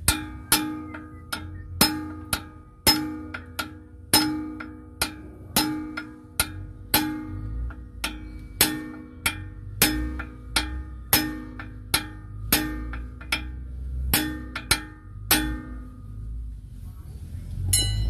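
Hammer blows on a long steel punch held against a truck drum brake's shoe pin, driving it out to free the brake shoes. Each blow is a ringing metallic clank, about two a second, and they stop about fifteen seconds in.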